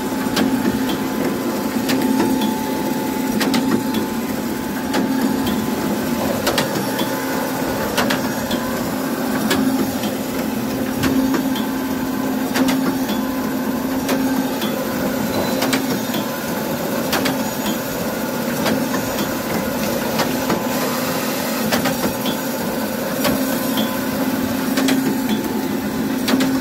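An overhauled Baader 187 fish-filleting machine running steadily: a constant mechanical hum with a sharp clack or knock about every one and a half seconds.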